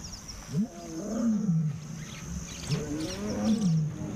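Male African lions calling in a contact exchange: two long roars, each rising and then falling in pitch, one about half a second in and one near the end.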